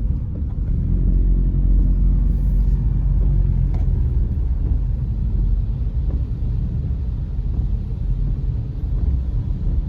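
Car driving through floodwater on a flooded road, a steady low rumble of engine and tyres running through water.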